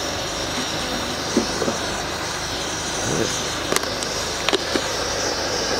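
Steady outdoor background noise with a higher hiss running through it, and a few faint clicks in the second half.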